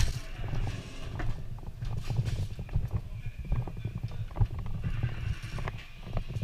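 Footsteps on a hard floor with the player's kit knocking, irregular short knocks over a low rumble.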